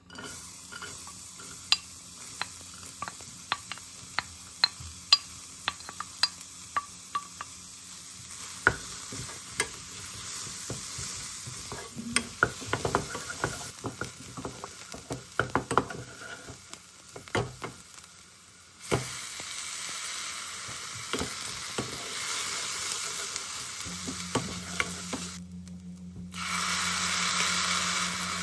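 Diced carrots and onions sizzling in hot oil in a saucepan, with a wooden spoon stirring and tapping sharply against the pan, many quick taps in the first several seconds. Near the end the sizzling gets louder and brighter.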